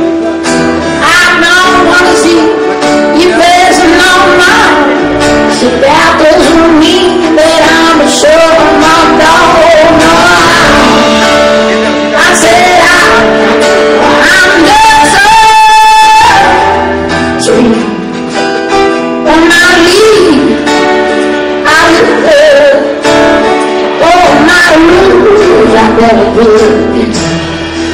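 Live song on acoustic guitars, with a male voice singing over them and one long held note about halfway through.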